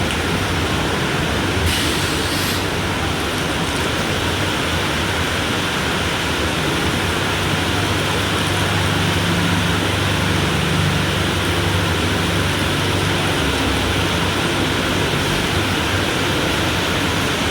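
Mumbai suburban local train running in heavy rain: a steady, even rush of rain and train noise with a low hum underneath.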